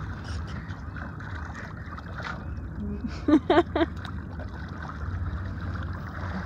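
Water gurgling and lapping around a swimmer paddling beside a sailboat's hull, over a steady low rumble of wind. A little past halfway, three short, loud vocal sounds come in quick succession.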